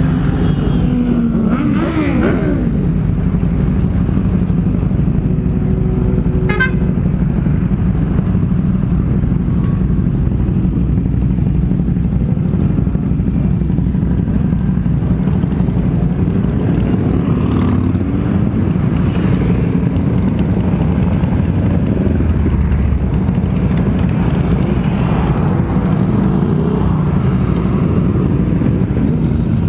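Steady wind rush on an action camera's microphone, with motorcycle engine noise underneath, while riding at road speed. There is a short horn toot about six and a half seconds in.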